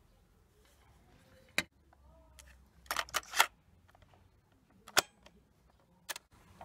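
Sharp plastic clicks and clacks of a cassette being loaded into a Sanyo Little Mini radio-cassette player: a single click, a quick cluster of clacks about halfway through, then the deck's door snapping shut and a piano-key control being pressed near the end.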